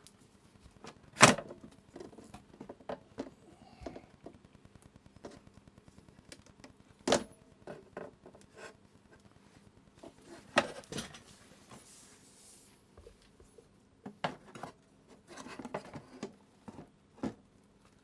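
Hard plastic parts of a resin 3D printer's casing knocking and clicking as they are handled and shifted, with scattered sharp knocks, the loudest about a second in.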